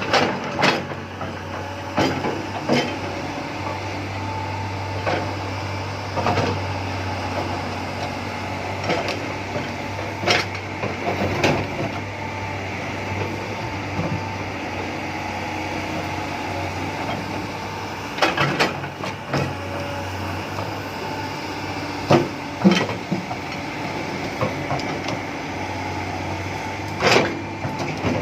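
Komatsu PC300 hydraulic excavator's diesel engine running steadily, with irregular sharp knocks from the working machine.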